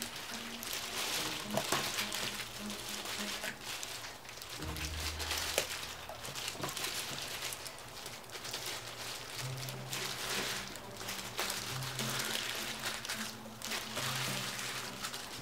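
Plastic-gloved hands pulling the skin off a raw whole chicken, making a wet crackling and rustling. Soft background music with a low, slowly changing bass line plays under it.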